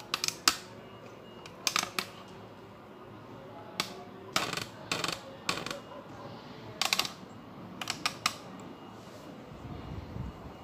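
Sharp hard clicks and taps in small irregular clusters, every second or two, over a low steady background. A low rumble rises near the end.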